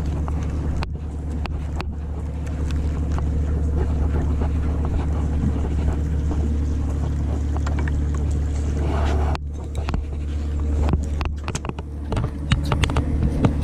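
Fishing boat's engine running steadily with a low hum, under wind and water noise, with scattered light clicks and knocks; the sound drops out briefly about nine seconds in.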